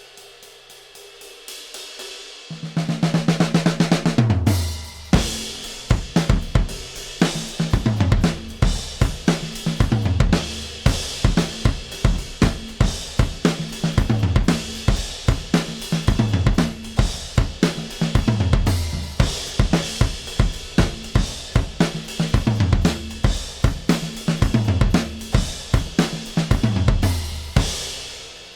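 Drum loop of kick, snare, hi-hats and cymbals over bass notes that slide down in pitch. It plays through a drum-bus compressor. Only soft hi-hat ticks are heard at first; the full beat comes in loud about two and a half seconds in.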